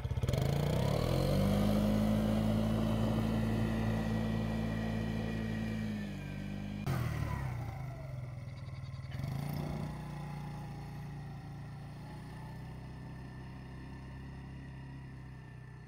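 Small ATV engine running: its pitch rises over the first second and a half and holds. It drops and cuts off abruptly about seven seconds in, and after that a lower, steadier engine note fades away.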